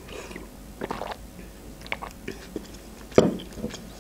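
Close-miked mouth sounds of eating: a sip from a mug, then soft, sticky chewing and lip smacks on cotton candy, with one louder thump a little after three seconds in.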